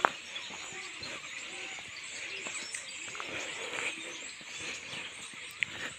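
A flock of starlings chattering in the trees: many overlapping small chirps and whistles. A sharp click right at the start.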